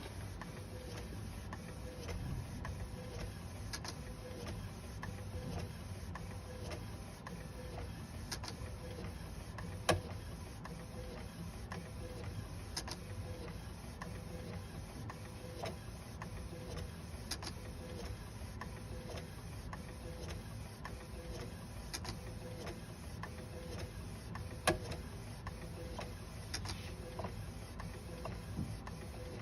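FL200h compact food printer running as it prints: a steady low mechanical running noise with a regular light tick a bit more than once a second and two sharper clicks. This is the abnormal noise that goes with its printed lines coming out jagged.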